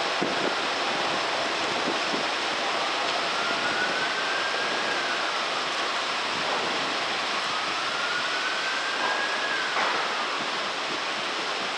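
Class 325 Royal Mail electric multiple unit running slowly past along the platform: a steady rush of wheels and running gear, with a whine that climbs slowly in pitch and then falls away, twice, rising again near the end.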